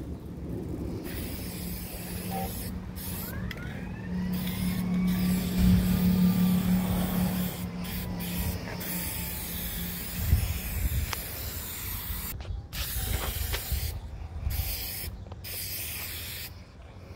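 Aerosol can of Rust-Oleum hammered spray paint hissing in repeated bursts with short pauses, laying a coat of paint on a metal housing. Under it, the steady drone of an aircraft passing overhead, loudest about five to seven seconds in.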